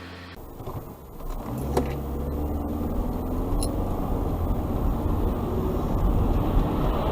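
Car engine and road noise heard from inside the cabin, getting louder over the first couple of seconds as the car pulls away and picks up speed, then holding steady.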